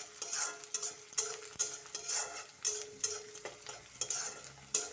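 Spatula stirring and scraping in a kadai of sizzling oil with onions and turmeric powder, in repeated strokes about twice a second.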